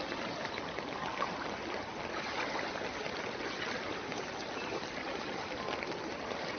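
Steady rushing of flowing floodwater.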